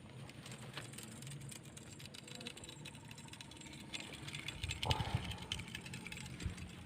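Handling noise close to the microphone: scattered rustling and clicks, with a cluster of low thumps and crackling about five seconds in.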